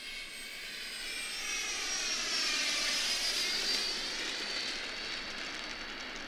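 Electric motor and propeller of an E-flite P-39 Airacobra 1.2m RC warbird whining as it lands and rolls out on the runway. The whine grows louder and rises in pitch to a peak about three seconds in, then falls and fades.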